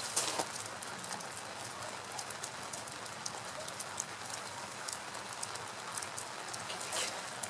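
Irregular crackling and sharp ticks over a steady hiss while molten aluminium is poured from a crucible into a sand mould.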